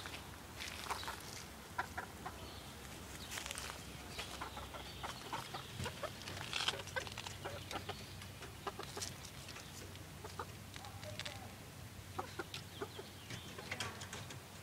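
Chickens clucking in a coop, short scattered calls with clicks and rustles between them.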